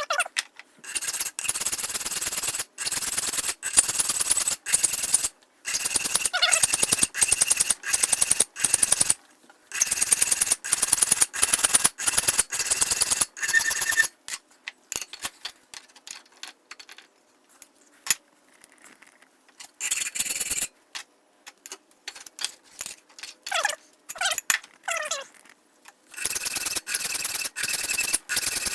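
Hand file rasping on the hardened steel spine of a cleaver forged from a mower blade, in a steady run of strokes about one a second. The strokes stop for around twelve seconds midway, and the filing starts again near the end.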